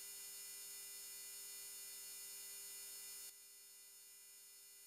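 Faint, steady electrical hum with many overtones on the aircraft intercom audio line. It cuts out about three seconds in, leaving near silence.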